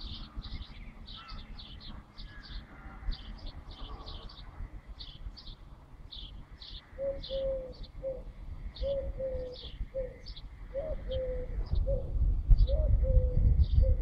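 Small birds chirping rapidly, two or three short high notes a second. From about halfway, a pigeon coos in a repeating low phrase of short and drawn-out falling notes. A low rumble builds near the end.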